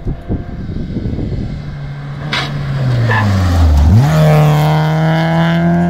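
BMW E30 rally car's engine as the car comes up the stage road: its note falls steadily as it slows for the bend, then rises sharply about four seconds in as the throttle goes back on, and it holds high and loud as the car passes close by.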